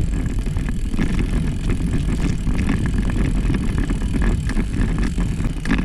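Wind buffeting the microphone and rolling noise while riding a bicycle: a loud, fluttering low rumble with scattered light clicks and rattles.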